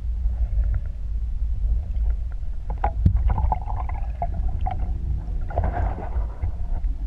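Water sounds through a GoPro's waterproof housing: a steady low rumble with scattered clicks, and two bursts of bubbling noise, one about three seconds in and one near six seconds.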